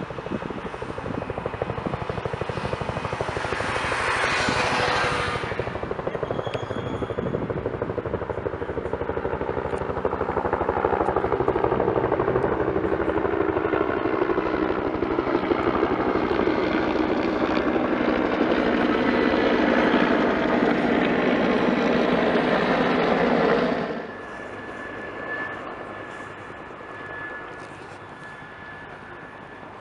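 Two two-bladed Huey-type military helicopters in flight, their rotors beating steadily and growing louder as they pass. Near the end the sound drops off suddenly to a fainter, more distant helicopter with a thin high whine.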